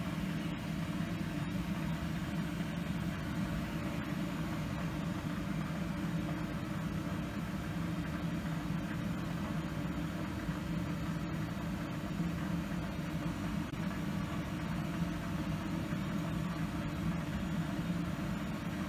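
Steady low hum of laboratory equipment running, unchanging throughout.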